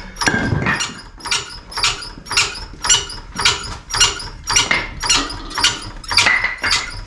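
Trolley jack being pumped by its long handle: an even run of short squeaky clicks, about two and a half a second.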